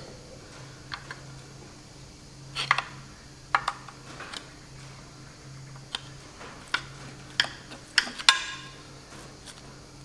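A thin metal bar prying a bearing cap off a Chamberlain 9G front gearbox housing: a dozen or so scattered metal taps and clicks as the bar levers and slips against the cap, the loudest near the end with a brief ring, as the cap comes free.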